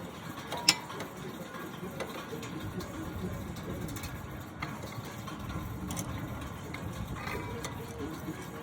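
Metal clicks from worn brake pads being worked out of a front brake caliper bracket: one sharp click about a second in, then a few lighter ones, over a steady low hum.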